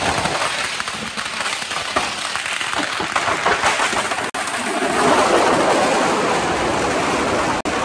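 Dense, continuous crackle of many small firecrackers bursting in rapid succession. It grows louder about five seconds in and breaks off for an instant twice.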